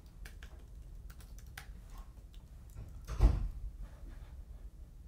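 Keystrokes on a computer keyboard, a few scattered clicks as a line of text is typed, with one louder dull thump a little past three seconds in.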